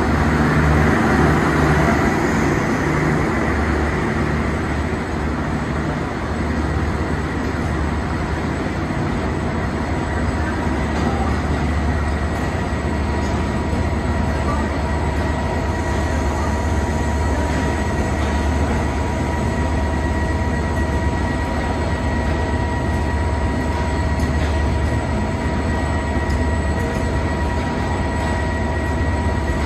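Bangladesh Railway intercity passenger coaches rolling slowly past as the train pulls out of the station: a steady rumble of wheels on rail, with a thin steady whine running through it that grows clearer about halfway through.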